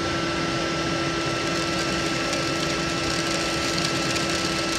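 Harbor Freight 40-volt brushless cordless leaf blower running on turbo boost, a steady whine held at its raised pitch, as it powers a drywasher. Dirt and gravel rattle down the riffle tray, driven by the extra airflow.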